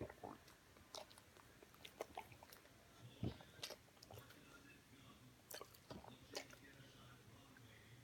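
Near silence with faint, irregular clicks and smacks, two of them a little louder.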